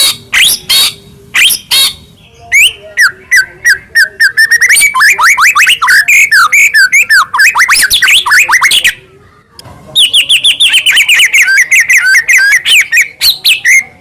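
White-rumped shama (murai batu) singing a fast, varied song of rapid ticking 'kretek' notes and quick whistled sweeps, with a brief pause about nine seconds in.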